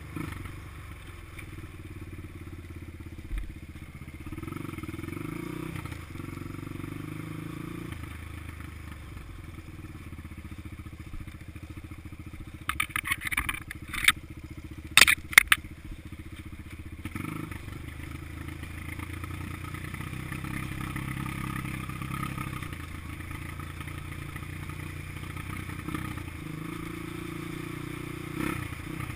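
Honda XR200's single-cylinder four-stroke engine running as the dirt bike is ridden, its revs rising and falling. A quick cluster of sharp knocks and clicks comes about halfway through.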